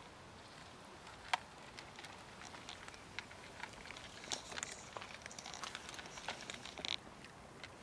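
Cats eating dry kibble: scattered crunches and clicks of chewing, busiest in the second half, with one sharper click about a second and a half in.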